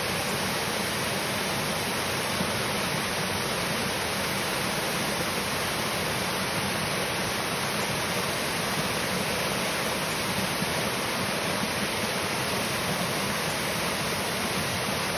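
Steady rush of running stream water.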